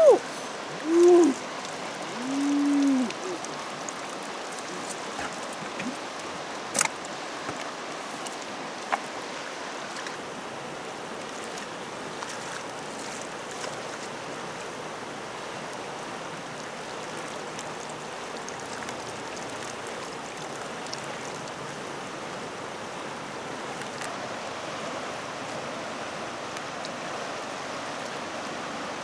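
Steady rushing of a swollen, fast-flowing muddy river. A few short pitched calls, each arching and falling away, are the loudest sounds in the first three seconds, and a single sharp click comes about seven seconds in.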